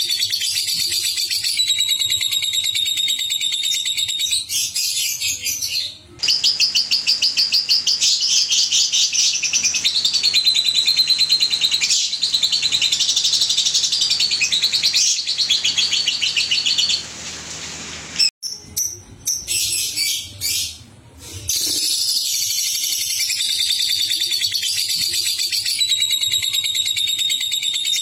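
Young lovebirds chattering in fast, high trills. About six seconds in, one long unbroken trill of the kind fanciers call ngekek runs for about ten seconds and cuts off, followed by a few scattered calls before the chatter resumes.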